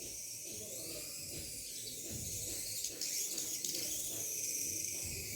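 Tiny 1:100 scale FPV RC car's electric drive motor whining thinly, its pitch rising and falling with the throttle, over a steady hiss.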